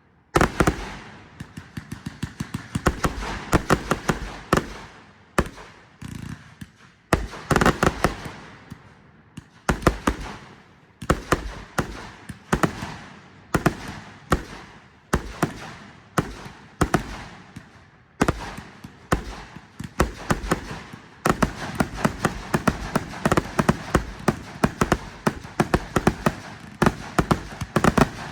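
Fireworks going off in quick volleys: many sharp bangs, often several a second, with crackling and echo between them.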